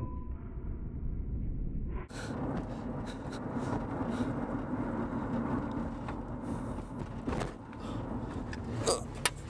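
Road and running noise of a moving car heard from inside its closed trunk: a steady low rumble, muffled at first and fuller from about two seconds in, with scattered knocks and rattles and a sharper click near the end.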